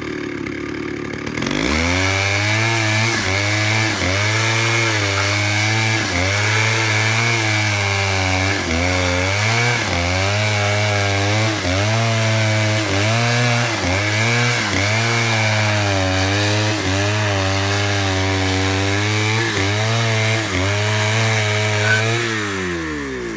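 Stihl chainsaw running at high revs while cutting pine into lumber. The engine pitch dips and recovers over and over, about once a second, as the chain bites. The saw runs lower for about the first second and a half, then comes up to speed.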